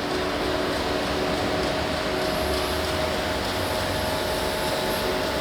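Morara grinding machine running: a steady machine hum and hiss with faint constant tones, no change in pitch or level.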